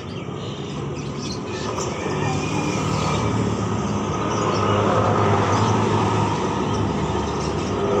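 A motor vehicle's engine close by, its drone growing louder over the first half and then holding steady, with birds chirping faintly in the background.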